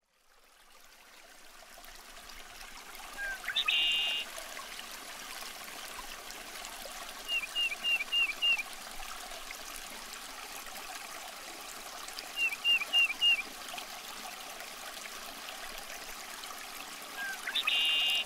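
Stream water running over rocks in shallow riffles, fading in at the start. Above it, high chirping calls: a short buzzy trill about three and a half seconds in and again near the end, and two quick runs of four or five chirps in between.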